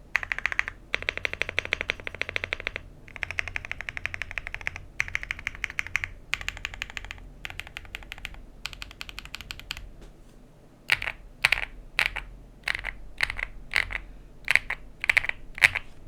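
VGN VXE75 V2 mechanical keyboard being typed on: fast runs of keystrokes in bursts, then from about ten seconds in, slower separate single key presses.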